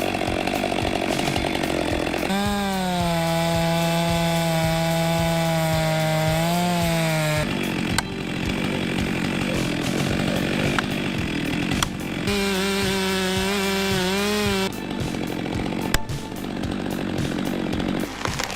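Chainsaw running at high revs and cutting into a large tree trunk. Its steady whine wavers and dips as the chain bites into the wood. The sound changes abruptly several times between cuts.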